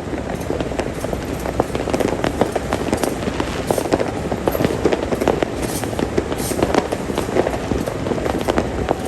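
Fireworks and firecrackers crackling and popping in rapid, irregular succession over the low, steady rumble of idling diesel locomotives.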